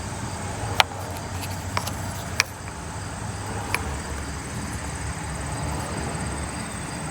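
Four light, sharp clicks from handling a removed spark plug and tools, over a steady low background hum.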